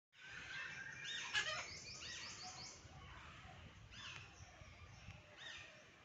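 Birds chirping: short arching chirps repeated throughout, with a quick run of about six high chirps between about one and a half and three seconds in. A sharp click a little over a second in is the loudest sound.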